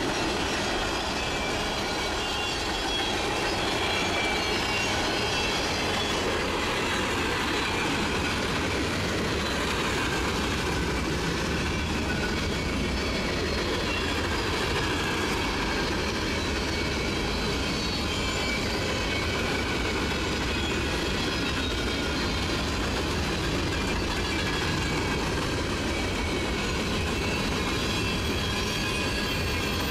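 Open-top freight gondola cars of a long train rolling past, a steady rumble of steel wheels on the rails with a high wheel squeal over it.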